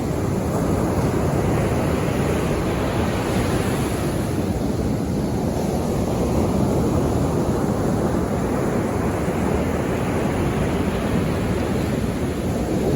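Sea waves breaking and washing ashore in a continuous rumbling surf, with a swell of higher hiss as a wave comes in about a second in and again from about six seconds.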